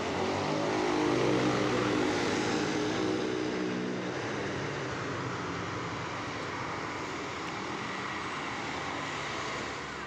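Coach bus engine running as the bus passes close and climbs the hill, its note strongest in the first few seconds, then fading as it pulls away, leaving steady road and traffic noise.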